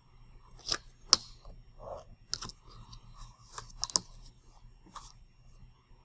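Ruler and pencil being handled on a sheet of drafting paper: scattered light clicks and taps with soft rustling of the paper, the sharpest click about a second in.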